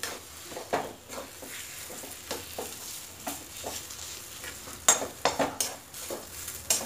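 Flat metal spatula scraping and stirring a spiced mashed-potato filling in a metal kadai over a gas flame, with a light sizzle of frying underneath. Irregular scrapes and knocks against the pan, the loudest about five seconds in and again near the end.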